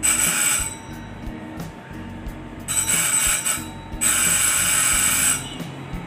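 Mains-powered electric fire alarm bell ringing in three bursts as it is switched on and off in a test: a short burst at the start, another about three seconds in, and a longer one right after. The bell works, with no defect.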